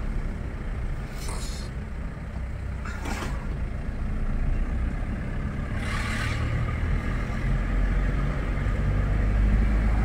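Car driving along a wet road, heard from inside the cabin: a steady low engine and road rumble that grows a little louder toward the end, with three short hisses along the way.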